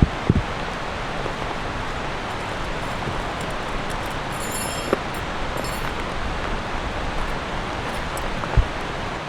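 Steady rain falling, with a few heavier drops landing as sharp taps, the loudest near the end.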